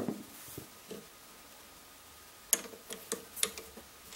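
Small metal clicks and knocks from a steel beam compass being handled and fitted: a knock right at the start, a couple of light taps, then a quick run of sharp clicks between about two and a half and three and a half seconds in.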